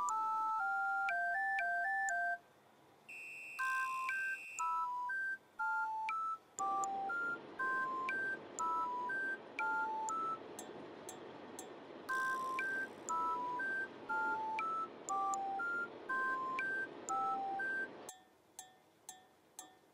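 Background music: a simple melody of pure, beep-like notes stepping up and down. A steady hiss sits underneath through the middle.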